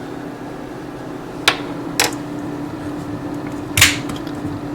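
Kitchen items being handled: three sharp knocks and clacks, the loudest near the end, over a steady low hum.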